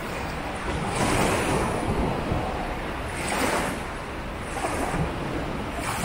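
Sea surf breaking on a sandy beach: a continuous wash of water, with waves surging about a second in and again past three seconds.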